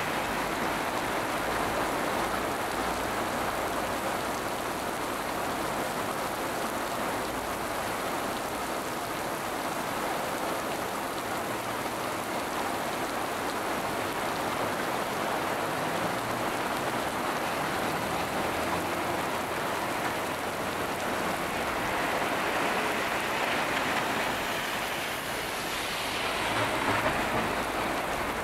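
Heavy downpour of thunderstorm rain pelting a flooded street, a steady dense hiss. Car tyres swish through the standing water near the start, and the rain swells briefly near the end.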